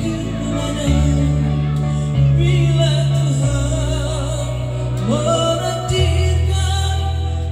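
Live electronic keyboard playing held chords through a PA, the chords changing every second or two, with a man singing phrases over them into a microphone.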